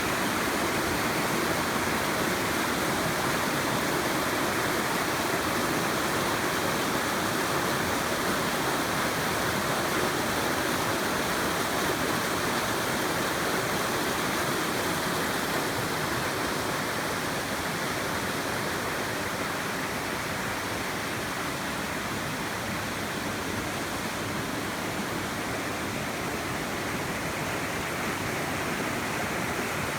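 Mountain valley stream, water rushing in a steady, unbroken wash.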